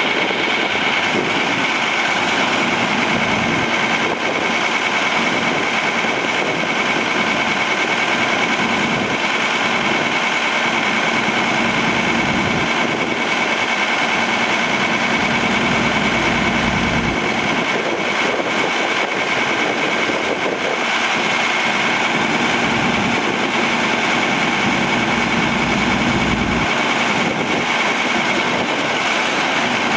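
Ford 7.8L inline-six diesel engine of a 1991 Ford F700 truck idling steadily, with a constant high whine over the engine noise.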